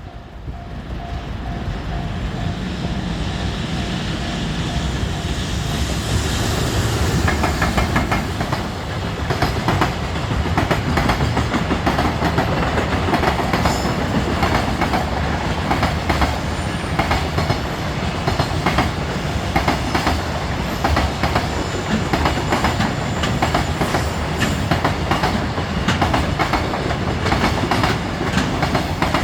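JR Freight EF210 "Momotaro" electric locomotive hauling a freight train past a level crossing, the wagons' wheels clattering rhythmically over the rail joints. A level-crossing alarm bell rings in the first few seconds, before the clatter builds.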